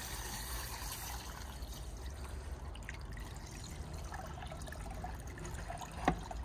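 Water running and trickling into a metal cattle water trough from its opened inlet, with the supply still on and under pressure, while the inlet is cleared of a blockage. A single sharp knock near the end.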